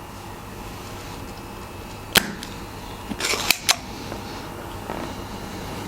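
A spring-loaded desoldering pump fires with one sharp, loud snap about two seconds in, sucking molten solder off a keyboard switch joint. About a second later comes a short scraping rustle with two more clicks as the tool is handled.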